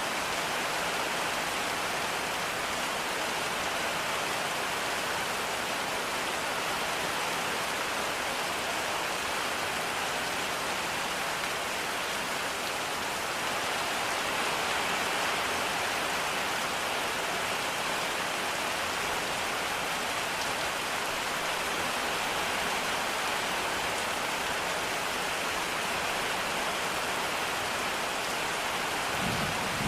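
Steady rain falling, an even hiss with no letup. A low thunder rumble begins right at the very end.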